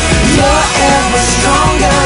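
Background music: a song with full band backing, a steady bass line and a melody line.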